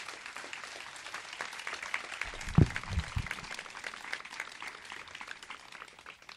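Audience applauding, tapering off near the end, with a few low thumps about two and a half seconds in.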